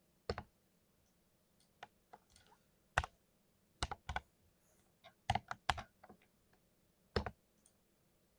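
Keys pressed one at a time on a very small keyboard with colourful keycaps, sharp separate clacks at an uneven pace, with a quick run of several strokes about five seconds in.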